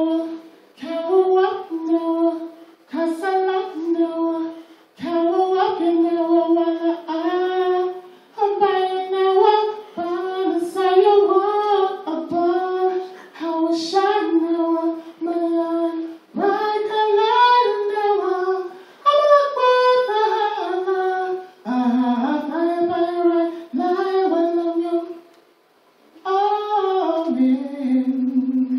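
A woman singing solo, unaccompanied, in sustained melodic phrases separated by short breaths.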